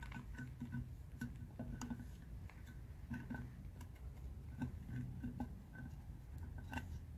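Blue plastic filler spout of a Liqui Moly injector cleaner bottle clicking as it is worked by hand: a string of light, irregular plastic clicks, several a second in places.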